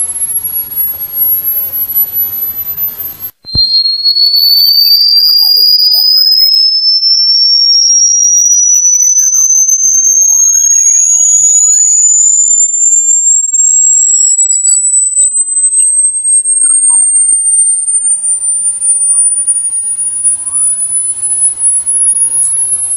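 Electronic rat-repellent tone: a loud, shrill pure tone over a light hiss breaks off about three seconds in. A single tone then starts again lower and glides slowly and steadily upward in pitch to a piercing whistle.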